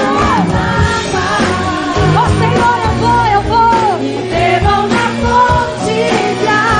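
Christian worship song in Portuguese: voices singing a melody over bass and drum accompaniment.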